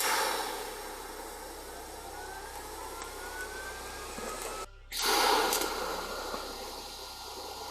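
Welding arc tack-welding the steel drawer pieces: a steady noisy burn that starts abruptly, stops briefly after about four and a half seconds, then starts again for a second weld.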